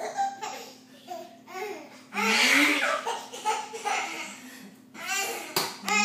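A baby laughing in repeated bursts, with babbling, in short bursts separated by brief pauses and a quick run of laugh pulses near the end.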